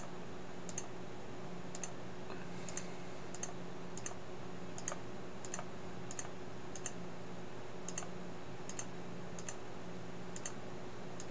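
Computer mouse clicking, one click every half second to a second, about fifteen in all, each click placing another via on the board layout. A faint steady hum runs underneath.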